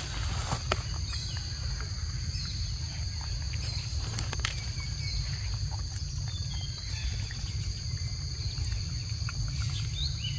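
Steady high-pitched chirring of insects, over a steady low rumble and a few faint clicks.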